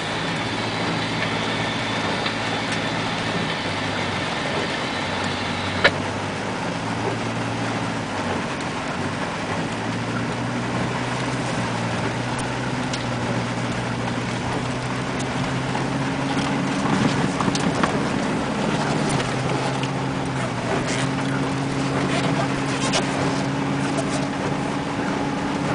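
Car engine running under load while the car struggles through a muddy roadside ditch, heard from inside the cabin; the engine note steps up about ten seconds in and again near the end. Scattered crackles come through in the second half, with one sharp click early on.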